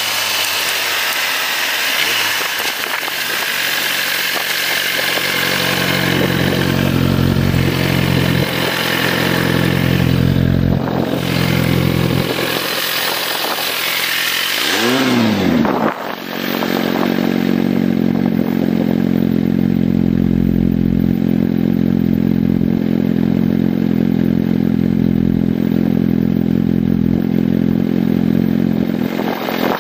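Sport motorcycle engine heard from the rider's helmet camera: running at road speed with wind rush, then slowing. A quick rev blip about halfway through is followed by a steady idle.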